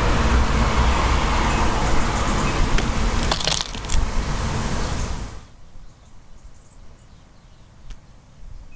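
A passing vehicle's engine and road noise, a steady low rumble that dies away suddenly about five seconds in, leaving a quiet background with a few faint ticks.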